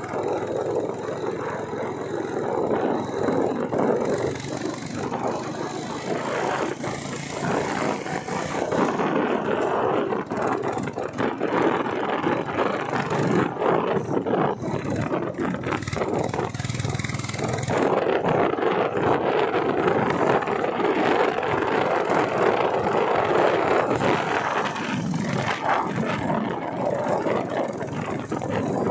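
Steady noise of a vehicle being driven along a road, with wind buffeting the microphone.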